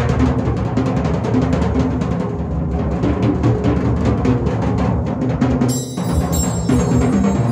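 Large acoustic drum kit played in fast, dense runs on the low toms. About three-quarters of the way through, a cymbal crash rings out over the drumming.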